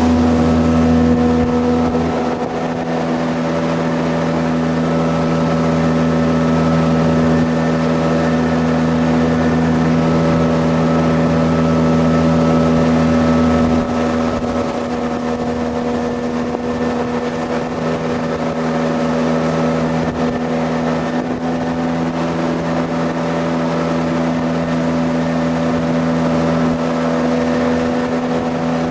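Jet boat engine running steadily under way, a constant engine drone over a rushing noise of water and air, dipping slightly in loudness about two seconds in and again about halfway through.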